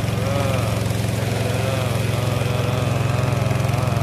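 Small motorboat engine running steadily as the wooden boat moves along, with a fainter rising-and-falling tone above it.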